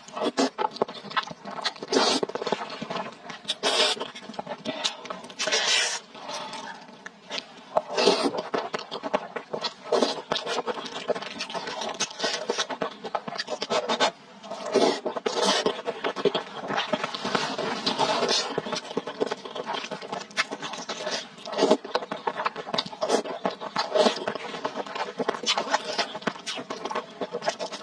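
Food-preparation handling noises: a dense run of scrapes and clicks, louder and softer by turns, over a faint steady hum.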